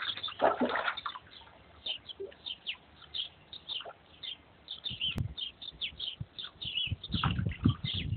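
Small birds chirping in quick, repeated short calls throughout, over the splashing and sloshing of a dachshund paddling through shallow pool water, which is loudest near the start and again near the end. A single sharp click about five seconds in.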